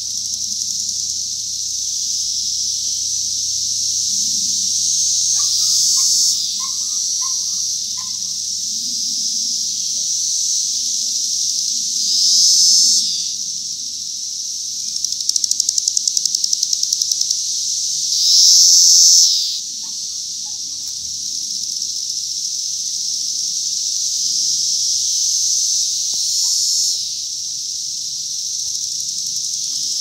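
Chorus of cicadas: a continuous high-pitched drone that swells louder for a second or two about four times as nearer cicadas sing. A little past halfway there is a rapid run of clicks lasting about two seconds.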